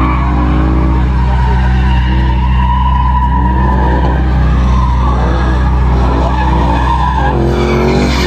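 A drifting car's tyres squealing in a long, wavering screech as it slides around cones, with its engine revving under it and a steady low engine rumble throughout.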